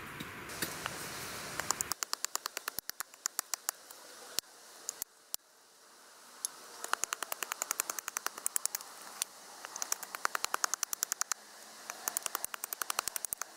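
Quick runs of light wooden knocks, about six a second, in several bursts with short pauses: a wooden stick and a hatchet tapping against a wooden chopping stump during carving.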